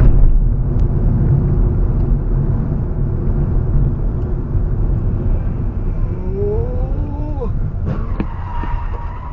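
Steady road and engine rumble of a car driving, picked up by a dashcam inside the cabin. About six seconds in, a short rising whine; near the end, a sharp knock followed by a steady high tone.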